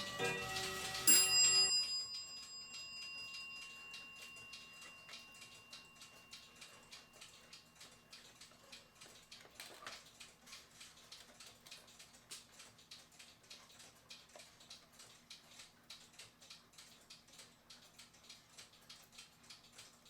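Cuckoo clock movement ticking steadily after being refitted in its case. About a second in, a single loud metallic ring dies away over a few seconds, after a few brief pitched tones.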